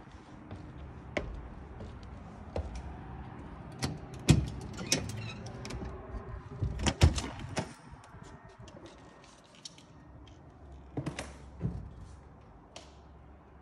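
Footsteps knocking on wooden stair treads, then a doorknob and latch clicking as an exterior door is opened, with a cluster of knocks around seven seconds in. A few more footfalls follow on the floor inside.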